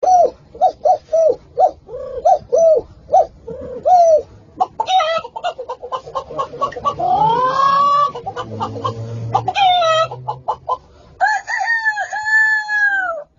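Chicken clucking in quick, repeated short calls, building into a denser run of calls, then a long rooster crow near the end.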